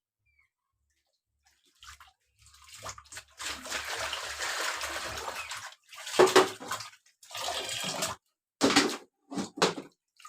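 Water running and splashing as vegetables are washed: a few seconds of steady running water starting about two seconds in, then several short splashes.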